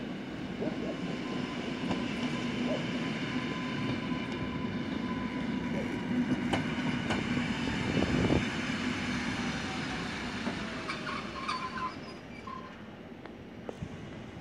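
Koleje Śląskie EN71AKŚ electric multiple unit running past with a steady electric hum, loudest as it comes alongside about two-thirds of the way through. Its wheels click now and then and give short high squeals near the end.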